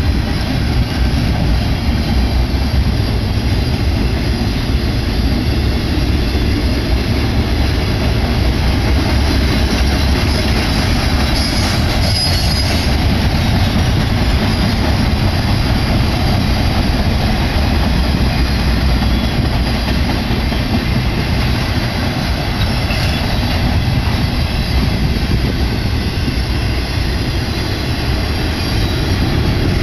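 Union Pacific freight cars loaded with containers rolling past: a steady rumble of steel wheels on rail, with a brief high wheel squeal about twelve seconds in.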